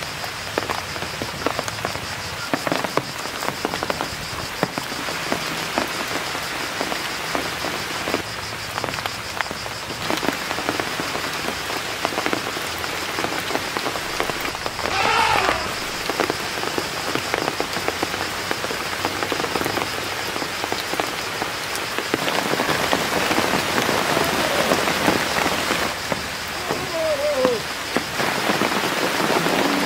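Steady rain falling on foliage, a dense hiss full of small patters and drips, with a thin steady high tone above it. A few short gliding calls sound: one rising about halfway through and two falling ones near the end.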